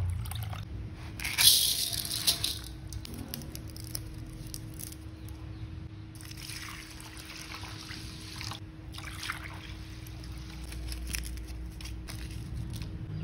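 Water poured and splashing in a container, loudest in a burst about a second in and again more softly around six seconds in, with scattered small clicks.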